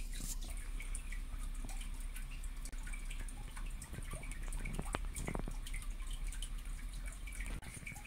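Quiet room tone with a steady low hum and many faint small ticks and clicks, with a couple of sharper clicks about five seconds in.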